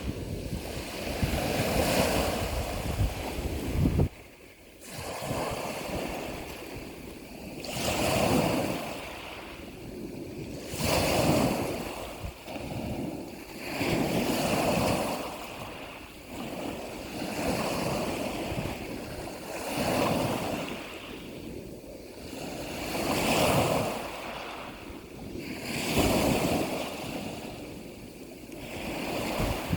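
Sea waves breaking and washing in, the surf noise swelling and falling back about every two to three seconds.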